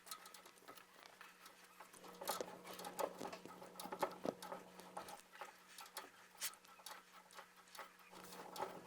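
Rotary pipe cutter being turned around a copper pipe: faint, irregular clicking and scraping as the cutting wheel scores its way into the pipe.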